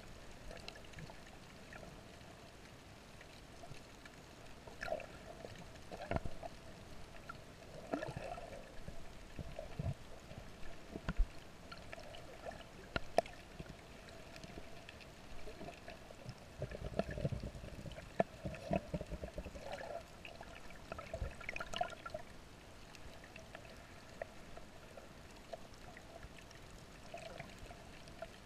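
Muffled underwater water noise heard through a GoPro's waterproof housing: faint gurgling and trickling with irregular swells and scattered small clicks, and a low rumble swelling up a little past halfway.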